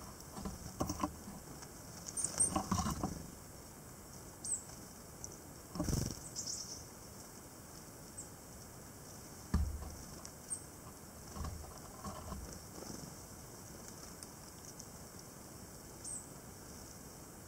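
Tits (great tit and blue tit) coming and going at a ground pile of sunflower seeds: a few very short, thin high calls and several brief soft flutters and rustles, the strongest about two to three seconds in, at six seconds and near ten seconds.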